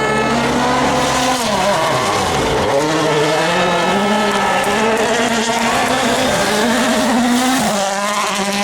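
Rally car engine revving hard, its pitch falling steeply about two seconds in, then rising and dropping again and again as it changes gear, with a sharp drop near the end.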